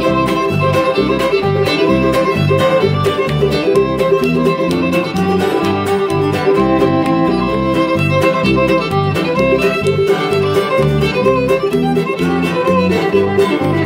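Bluegrass band playing an instrumental break: a fiddle carries the lead melody over strummed acoustic guitar and mandolin, with a steady regular beat in the low end.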